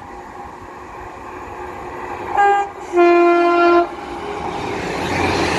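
Class 150 Sprinter diesel multiple unit sounding its two-tone horn: a short higher note about two and a half seconds in, then a longer, lower note. After that comes the growing rumble of the train running in.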